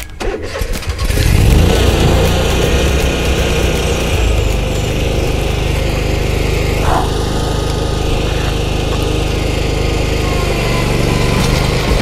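Engine of an RC Mowers TK-60XP tracked remote-control mower starting up, catching about a second in, then running steadily.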